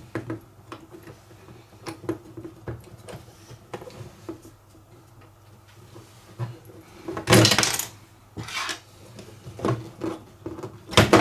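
Plastic and metal clicks and knocks as a cordless drill's motor and gearbox unit is handled and twisted out of its opened plastic housing, with a louder scraping rattle about seven seconds in and a sharp knock near the end.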